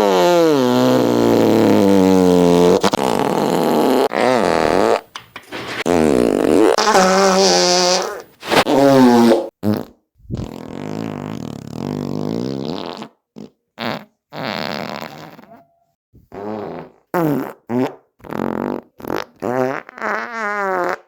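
A string of fart sound effects: a long wavering one falling in pitch to start, then a run of separate blasts of different lengths, short ones coming quickly one after another near the end.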